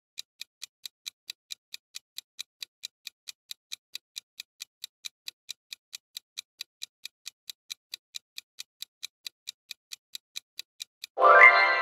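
Countdown-timer clock ticking sound effect, an even tick about four times a second, marking the seconds left to answer. Near the end the ticking stops and a loud sound effect of several tones comes in.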